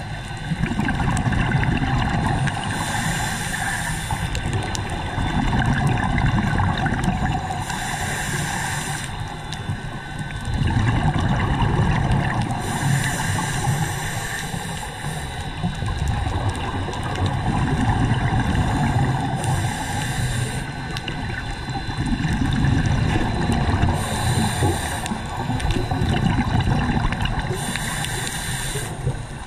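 Scuba diver breathing through a regulator underwater: a hiss with each inhale, then a bubbling rush of exhaled bubbles, repeating about every four to five seconds.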